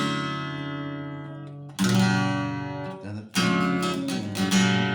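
Acoustic guitar chords strummed and left to ring, going from F-sharp to D major: a fresh chord is struck about two seconds in and again about three and a half seconds in, with another accent shortly after, each fading slowly.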